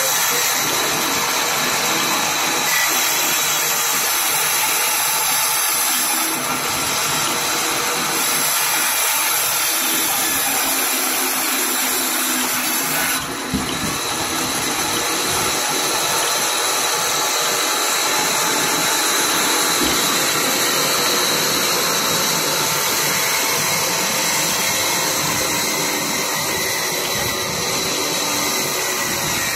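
Large vertical band saw, driven by a flat belt from an old stationary diesel engine, cutting through a log: a loud, steady whirring hiss of blade and drive, with a brief dip in level about halfway through.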